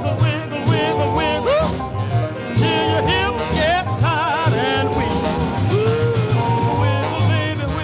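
Music: a song with a singing voice that wavers and trills in pitch, over a steady pulsing bass.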